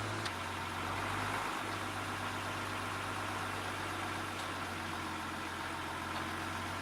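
Engine of a Tadano truck-mounted crane idling steadily with a low, even hum.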